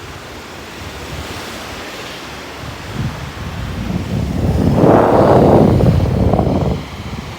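Sea waves washing up the beach, one wave swelling about three seconds in, loudest about two seconds later and falling away near the end, with wind buffeting the microphone.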